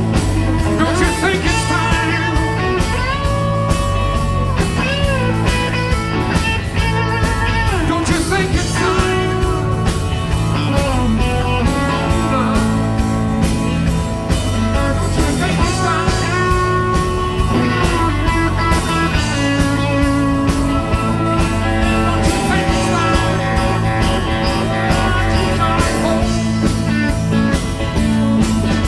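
Live rock band playing: electric guitar lead with bent, wavering notes over bass, drums and keyboard.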